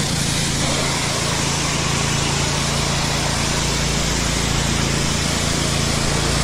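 An engine running steadily at constant speed, with a steady low hum and a dense, even mechanical noise.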